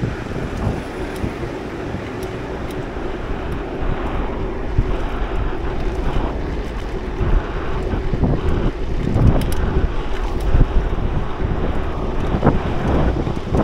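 Loud wind noise buffeting the microphone of a camera on a moving bicycle, rising and falling in gusts and louder in the second half.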